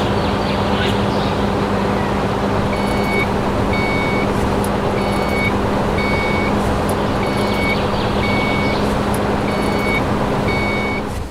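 Electronic reversing beeper sounding a steady series of high beeps, about one a second, starting about three seconds in, over a constant low hum and noise.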